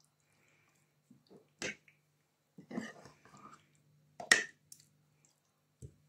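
Spoon mixing raw chicken pieces in a thick creamy marinade in a bowl: soft wet squelches and a few sharp clicks of the spoon against the bowl, the loudest about four seconds in.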